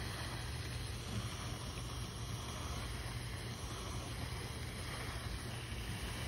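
Steady wind rumble on a phone's microphone, with an even outdoor hiss above it.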